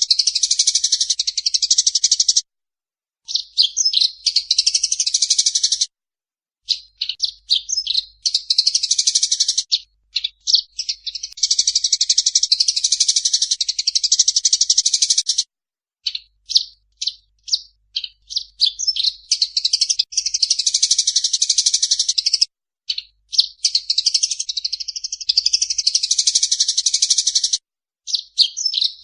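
Eurasian tree sparrows chattering in long, dense bouts of rapid harsh chirps: the agitated calls of sparrows fighting. The bouts are broken by short silent gaps.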